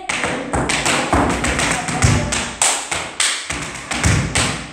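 Tap dancing: metal taps on heeled tap shoes striking the floor in quick rhythmic runs of clicks, with several heavier, deeper stamps among them.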